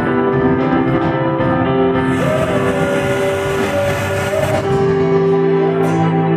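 Background music of slow, sustained chords that change every second or two.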